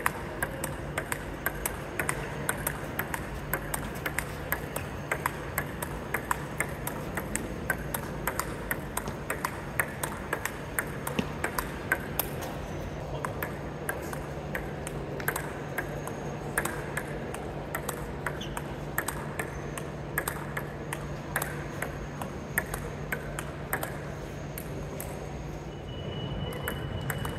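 Table tennis rally: the plastic ball clicking off two bats, one a Sanwei Froster PBO blade, and bouncing on the table in quick alternation, several hits a second. A steady low hum runs underneath.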